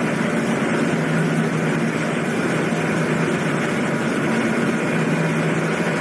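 Steady drone of the 1,509-ton car ferry Sazan under way: a low, even engine hum with the rush of churning wake water along the hull.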